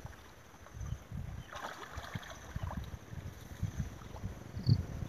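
Soft, faint sloshing of shallow muddy water as hands grope along the stream bottom for fish, with light wind on the microphone.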